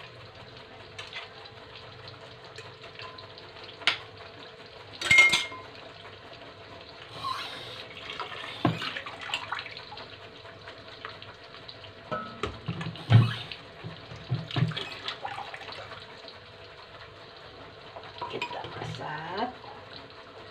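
Scattered clinks and knocks of kitchen dishes and utensils, with some water sounds, over a faint steady hiss and hum. The two loudest knocks come about five seconds in and about thirteen seconds in.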